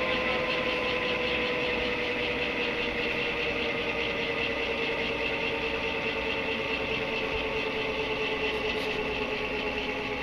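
Converted GE J79 turbojet running down, its compressor coasting: a steady whine and rumble whose tones slowly fall in pitch, heard from inside the intake.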